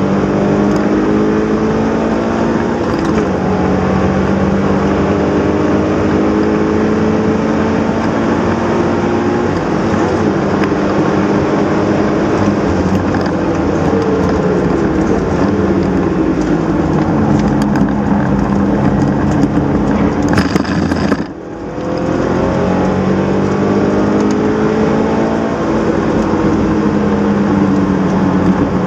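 Subaru BRZ's flat-four engine revving hard through the gears on a circuit, pitch climbing then stepping down at each shift and falling away under braking before climbing again, over constant tyre and road noise. The sound drops out briefly about two-thirds of the way through.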